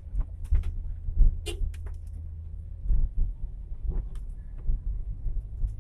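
Car engine and tyres rumbling low and steady on a wet, rough road, heard from inside the cabin, with scattered short clicks and knocks on top.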